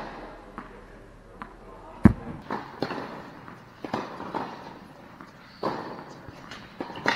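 Tennis balls struck by racquets and bouncing on an indoor hard court: a string of sharp pops, each echoing in the large hall, the loudest about two seconds in.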